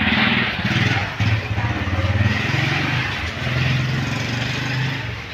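An engine running steadily, its pitch stepping up and down every second or so.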